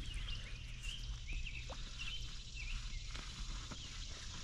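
Faint outdoor ambience: scattered short, high bird chirps over a steady low rumble.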